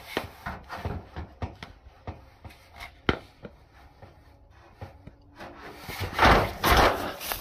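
Clothing rubbing and scraping against a phone's microphone as the phone is carried low during a walk, with irregular knocks and scuffs. About six seconds in come two louder rustling bursts.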